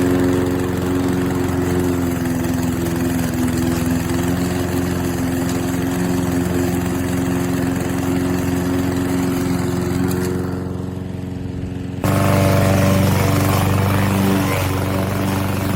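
PowerSmart gas push mower's 144cc single-cylinder OHV engine running steadily. It eases slightly about ten seconds in, then turns abruptly louder with a changed tone.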